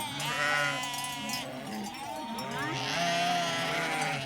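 A flock of sheep bleating, several calls overlapping one another without a break.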